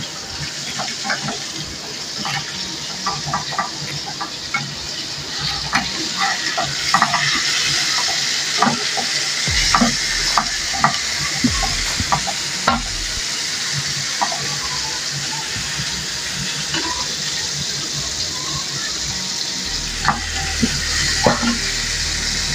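Chicken steak frying in butter and oil in a pan: a steady sizzle with many sharp pops and crackles, thickest in the middle and again near the end.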